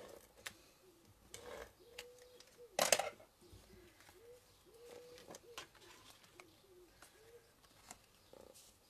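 Dove cooing faintly, a run of soft, repeated low coos. Card and paper are handled on a work table, with a louder brief rustle about three seconds in.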